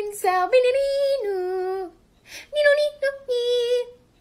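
A high voice singing long held notes in a song, with a short pause between phrases about two seconds in.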